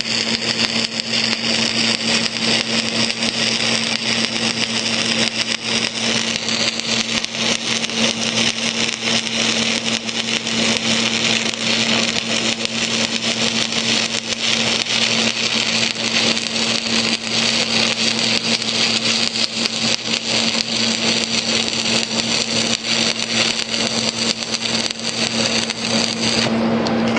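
Stick-welding arc of a Lincoln Excalibur 7018 electrode crackling and sizzling steadily while a horizontal stringer bead is laid, over a steady low hum; the arc breaks off near the end.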